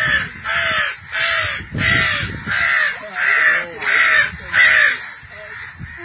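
A run of about eight loud crow caws, evenly spaced roughly two every three seconds, stopping about five seconds in.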